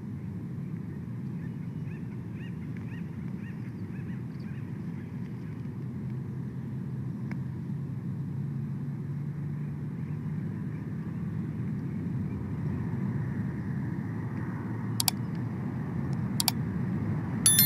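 Steady low outdoor rumble, slowly growing louder, with faint high chirps in the first few seconds. Near the end come two sharp clicks, then a ringing metallic clang at the very end.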